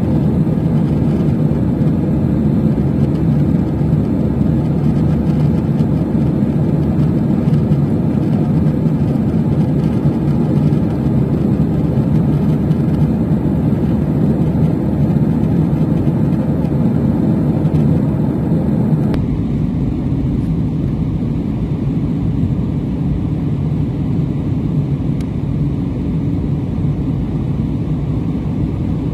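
Airliner cabin noise in flight: a steady mix of jet engine and airflow noise heard from a window seat. About two-thirds of the way through, its tone shifts slightly.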